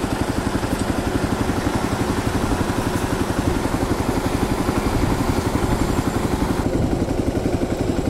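Motorcycle engine idling at a standstill in traffic, a steady, even pulsing beat.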